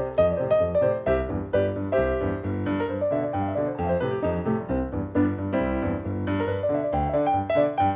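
Boogie-woogie played on a Roland RD-300NX digital stage piano: a steady left-hand bass pattern under right-hand chords and runs.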